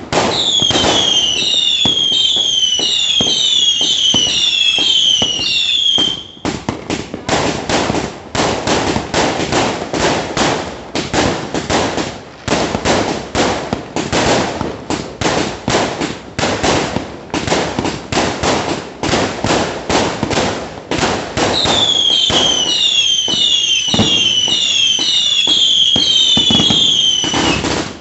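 Venus 100-shot aerial firework cake firing in rapid succession: a dense, unbroken run of pops and bangs as shots launch and burst. A whistle falling in pitch repeats about twice a second through the first six seconds and again near the end.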